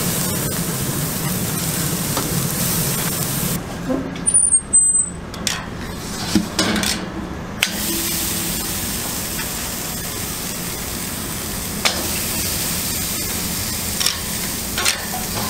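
T-bone steak sizzling on a hot grill grate, a steady hiss. The sizzle drops away for a few seconds in the middle, where a few short louder knocks sound, then carries on.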